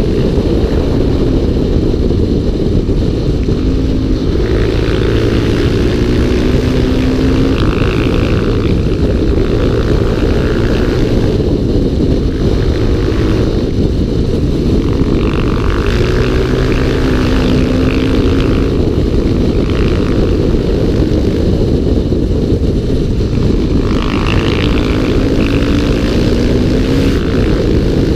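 Single-cylinder motorcycle engine under way, its revs rising again and again as the bike accelerates, several pulls of a few seconds each, over a steady low rush of wind and road noise.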